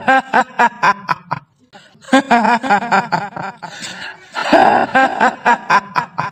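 The cackling 'hihihi' laugh of a kuntilanak, the female ghost of Indonesian folklore, used as a horror sound effect. It comes in three bursts of quick laughing, each about a second and a half long.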